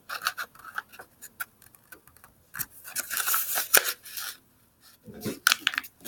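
A sheet of paper being folded in half by hand and creased, with sharp crackles and rustling and a longer stretch of rubbing noise in the middle as the fold is pressed down. It goes briefly quiet before a few more crackles near the end.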